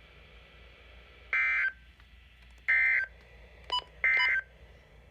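NOAA Weather Radio EAS/SAME digital data tones: three short buzzy bursts about 1.4 s apart, the end-of-message signal that closes a severe thunderstorm warning broadcast. A very short, thin beep falls between the second and third bursts.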